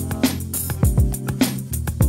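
Background music with a steady drum beat: deep kick hits about twice a second under cymbal hits and sustained instrumental tones.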